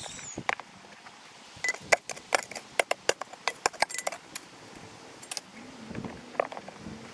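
Metal shovel striking stony soil while digging: a quick, irregular run of sharp clinks, a few ringing briefly, softer and sparser near the end.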